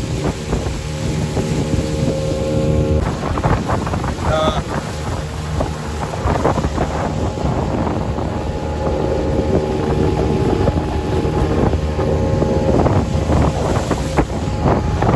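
The motor of a small open boat running steadily under way, with wind buffeting the microphone.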